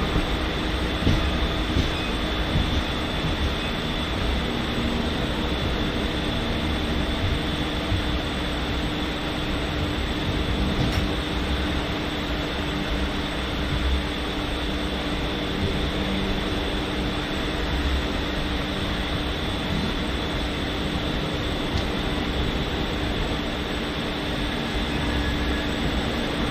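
Indian Railways LHB passenger coaches rolling past at close range: a steady rumble and rush of steel wheels on rail, with a faint steady hum over it.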